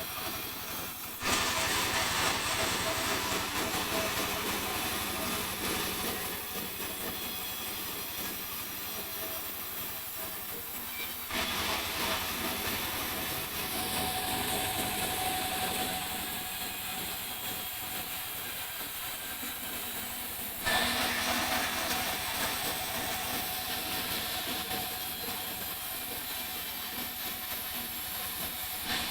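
Sawmill saw running and cutting through a mahogany log: a steady, noisy whine of blade and wood that jumps suddenly louder about a second in, again about 11 s in and about 21 s in.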